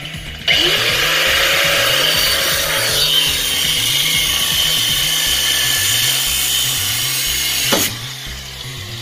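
Electric grinder's cut-off wheel cutting through a steel leaf-spring U-bolt, grinding steadily. It starts suddenly about half a second in and stops with a sharp click near the end.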